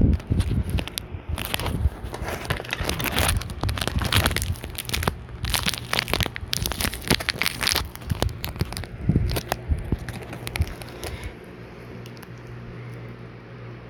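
Dense rustling and crackling, a run of irregular small cracks and scrapes, settling about eleven seconds in to a quieter steady low hum.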